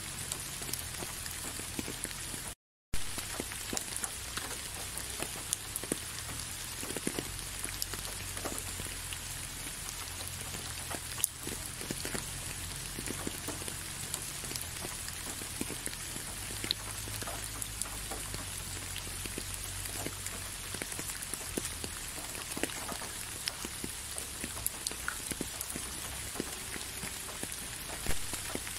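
Steady rain falling, with many distinct drops ticking on the surface. About three seconds in the sound drops out for a split second and comes back with a click.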